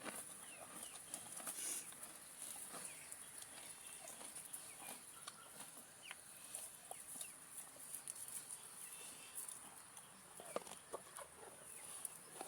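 Chickens clucking, with short scattered calls and small ticks throughout, and a steady high-pitched hiss underneath.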